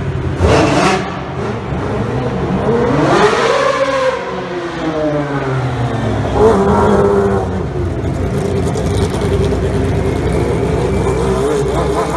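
Honda V12 of a 1991 McLaren MP4/6 Formula One car revving hard several times, its pitch rising and falling with each blip, then settling to a steadier note near the end.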